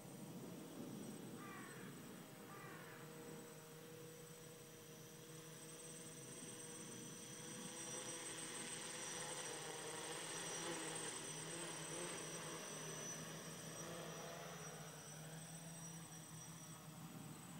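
Faint, steady electric buzz of a DJI 450 quadcopter's motors and propellers in flight, a hum of several held tones that swells and wavers in the middle and eases off toward the end.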